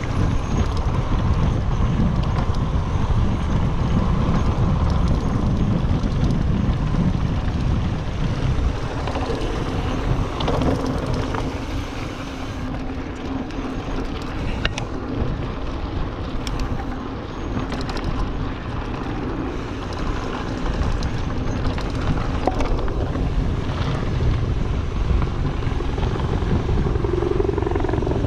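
Mountain bike rolling fast over a dirt fire road, with tyre rumble, rattles from the bike and wind on the handlebar camera's microphone. A helicopter drones in the background, a steady hum coming in about halfway through.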